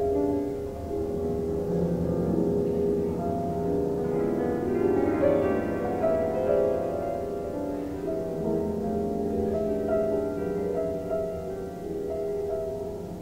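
Solo piano playing a dense passage of long, overlapping held notes, mostly in the low and middle register, with brighter higher notes joining around the middle.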